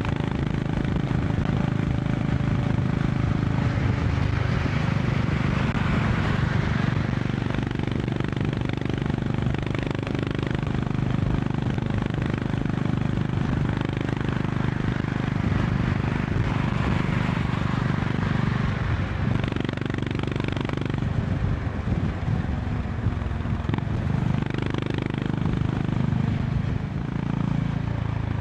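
Honda CB350 RS's air-cooled single-cylinder engine running steadily at highway cruising speed, heard from the riding position. Over it is a rushing noise of wind and road that swells and fades several times.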